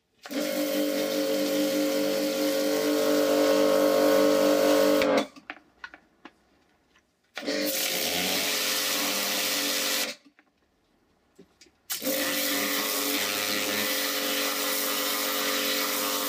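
Pressure washer spraying a high-pressure water jet onto metal parts and concrete, running in three bursts with pauses between: the pump starts when the trigger is pulled and stops when it is released. Each burst is a steady hum with a hiss, and the first, about five seconds, is the longest.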